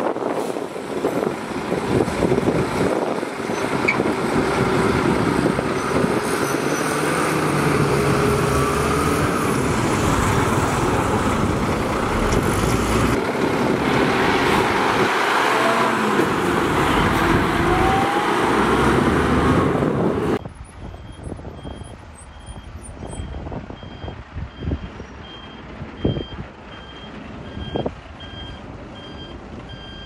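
Dump truck engine running loud for about twenty seconds, then after an abrupt drop in level a truck's reverse alarm beeping in a steady, regular rhythm over a quieter engine.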